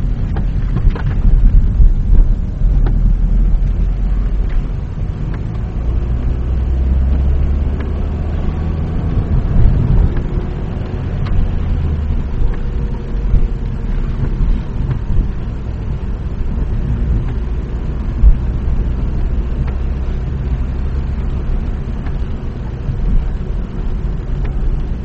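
Inside a moving car on a wet road: a steady low rumble of engine and tyres, with a few faint clicks.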